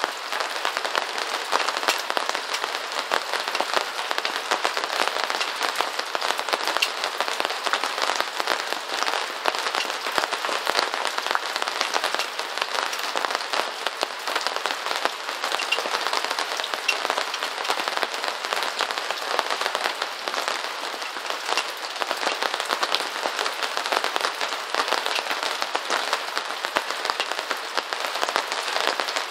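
Steady rain falling on a surface: a dense, even stream of small drop hits that never lets up, with almost nothing in the low end.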